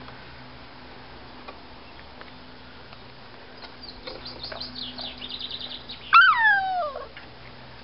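Miniature schnauzer puppy yelping while two puppies play-fight: a loud yelp slides down in pitch over about a second, about six seconds in, after a quick run of high chirping squeaks.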